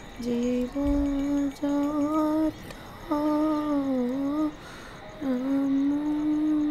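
A woman humming a slow, wordless tune: phrases of long held, gently wavering notes, broken by short pauses for breath.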